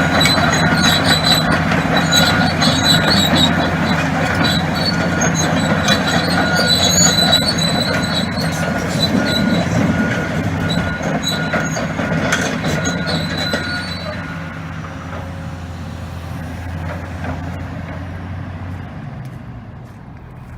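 A Hitachi ZX450LC excavator's diesel engine running, with a high squeal that keeps coming and going over the machine noise. After about fourteen seconds it gets quieter, and near the end the engine note drops away.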